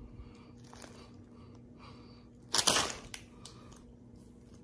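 Plastic crisp packet being handled: faint rustling, then one short, loud crinkle about two and a half seconds in, over a faint steady hum.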